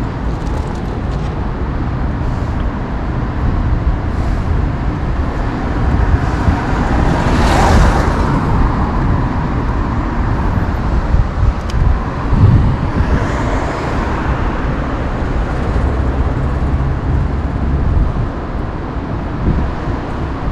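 Steady road-traffic rumble, with a car passing about seven or eight seconds in, swelling and fading away, and another, fainter pass a little after twelve seconds.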